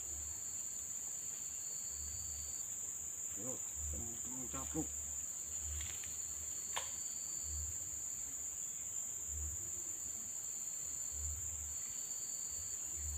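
Insects buzzing in one steady high-pitched drone, with a fainter, lower note that comes and goes. A faint voice murmurs briefly about four seconds in.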